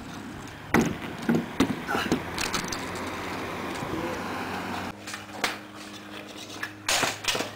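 Kick scooter rolling over pavement, with several sharp clacks of the scooter striking the ground and rail, a cluster in the first two seconds and more near the end.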